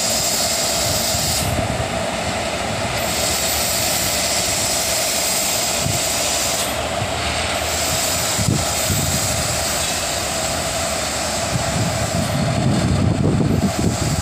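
Indian Railways WAG-7 electric locomotives passing close by at low speed with a goods train: a steady hum and hiss, with a couple of short knocks and a deeper rumble building near the end.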